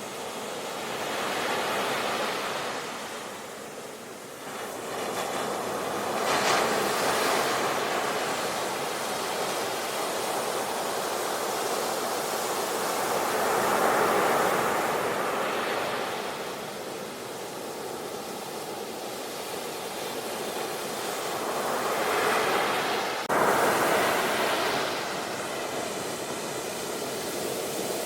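Sea surf breaking on a shore, the wash swelling and falling back every few seconds, with a sudden jump in level about 23 seconds in.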